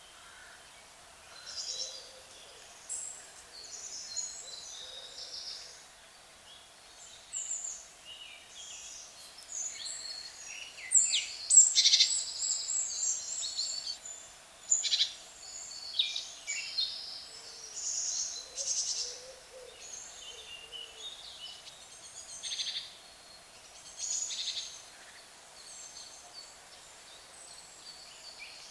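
Several birds singing in a dawn chorus, with overlapping chirps and song phrases that are busiest about halfway through, and a few low calls underneath.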